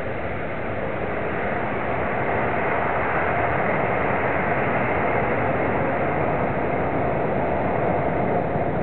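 Twin-engine Boeing 777-200 jet climbing out after takeoff: a steady noise of the turbofan engines at takeoff thrust, with a faint steady tone in it, growing slightly louder about two seconds in.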